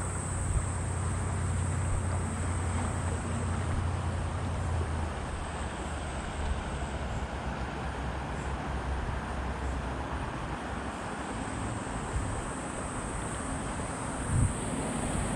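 Steady rush of water over shallow river rapids, with wind buffeting the microphone, strongest in the first five seconds. A single knock near the end.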